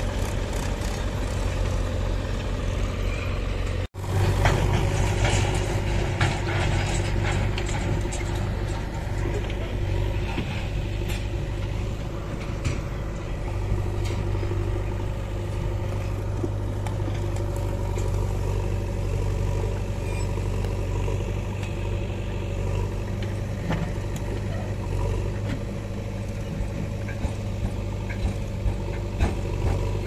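Farm tractor's diesel engine running steadily under load, with a sudden break about four seconds in. The engine runs on as the tipping trailer empties its load of soil, with scattered knocks and clatter.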